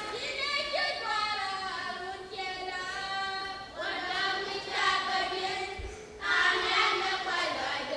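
Voices singing a melody in held phrases, with short breaks between the phrases.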